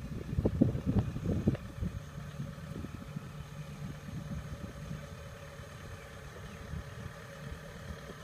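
Kubota combine harvester's engine running as the machine travels on its crawler tracks, a steady low drone. Irregular knocks and rattles sound over it for about the first two seconds, then the drone goes on evenly.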